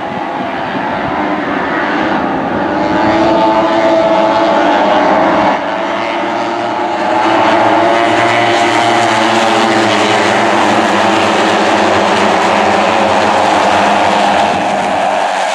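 Several small racing motorcycles at high revs passing close by, their overlapping engine notes rising and falling in pitch as they go past. There is a sudden drop in level about five and a half seconds in.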